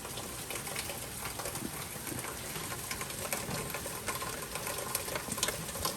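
Heavy hurricane rain falling steadily, a dense patter of drops on surfaces with scattered sharper drip taps.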